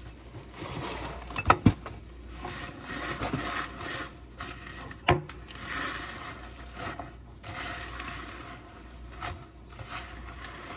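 A spoon stirring crisp cereal into melted marshmallow in a bowl: steady scraping and rubbing, with a few sharp knocks of the spoon against the bowl, twice about a second and a half in and once about five seconds in.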